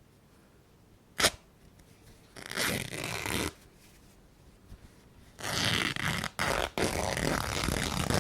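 Cloth being ripped by hand: a sharp snap about a second in, then a short rip of about a second, then a longer rip in several pulls near the end.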